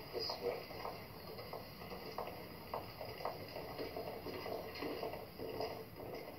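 Footsteps on a hard floor, a steady walking pace of about two steps a second, from a film soundtrack heard through a television's speaker.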